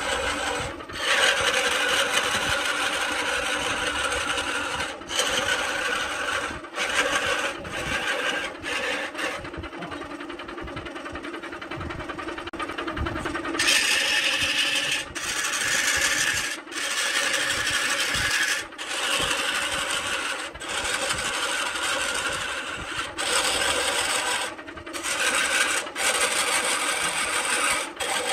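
Wood lathe spinning a coconut palm wood blank while a long hand-held turning tool scrapes and cuts its surface: a steady rasping over the lathe's hum, broken off briefly many times as the tool lifts from the wood. The rasp is quieter and duller for a few seconds mid-way.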